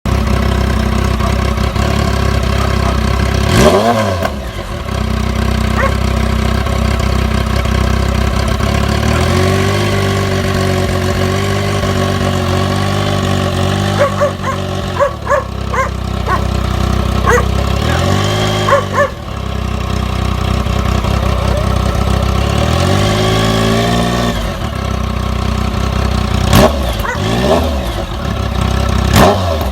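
Triumph Speed Triple's three-cylinder engine running with its exhaust removed: idling, then revved repeatedly, with a few longer held revs and several quick throttle blips that crackle.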